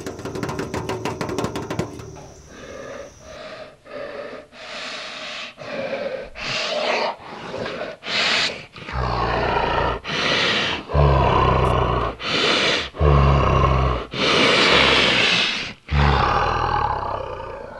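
A series of about a dozen roars, each under a second long, growing louder and deeper from about nine seconds in. A rapid even clicking fills the first two seconds.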